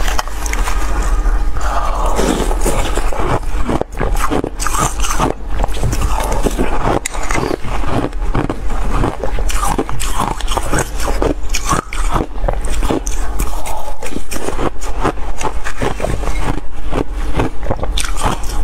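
Close-miked, dense, irregular crunching of mouthfuls of shaved ice being chewed, mixed with a metal spoon scraping ice from a glass bowl.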